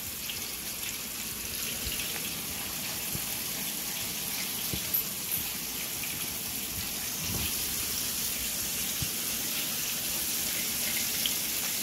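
Flour-dredged chicken breast pieces shallow-frying in hot oil in stainless steel skillets: a steady sizzle, with a few light clicks of metal tongs.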